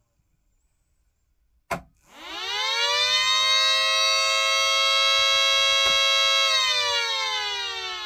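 3D-printed miniature Secomak GP3 air raid siren, 6-volt DC, run up once: a sharp click, then the tone rises quickly to a steady high wail. It holds about four seconds, then winds down with falling pitch after a faint second click.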